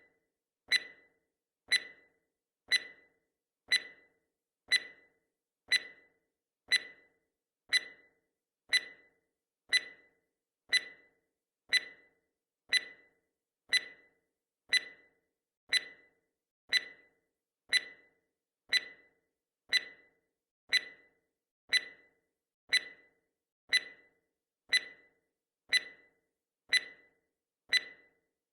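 Countdown timer's clock-tick sound effect: one short, sharp tick each second, evenly spaced.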